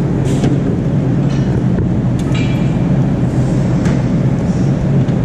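A steady, loud low machine drone, with a few light metallic clinks of hand tools being handled and one brief ringing clink about halfway through.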